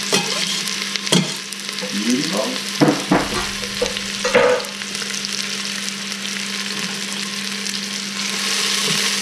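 Onion and garlic sizzling in hot olive oil in a stainless steel pot, the sizzle growing a little louder near the end. In the first few seconds, a few sharp knocks as the knife scrapes the garlic off into the pot.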